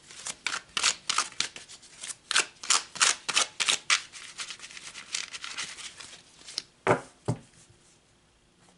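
A deck of oracle cards being shuffled by hand, a rapid run of crisp card flicks and riffles at several a second. About seven seconds in come two louder knocks, and then it goes quiet.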